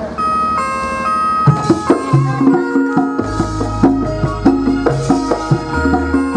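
Javanese gamelan striking up a piece. A few ringing pitched notes open it, then drum strokes enter about a second and a half in and the full ensemble plays a steady rhythm. Deep sustained gong notes come in about three seconds in and again near the end.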